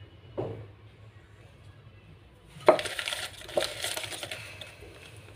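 A hand rummaging through crumpled lined-paper packets in a clear jar: a sharp knock against the jar about two and a half seconds in, then paper rustling and crinkling that fades out. A soft knock about half a second in as a small eraser is set down on the table.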